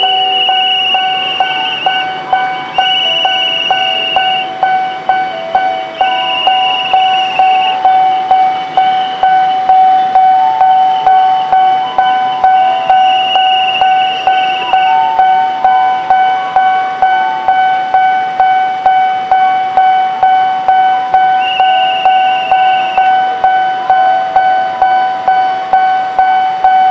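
Railroad level-crossing warning bell ringing steadily, a ringing tone struck about twice a second, sounding while the barrier is down for an approaching train.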